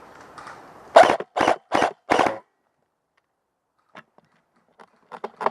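Airsoft gun firing four short rapid bursts in quick succession, loud and close to the microphone, followed by a few faint clicks.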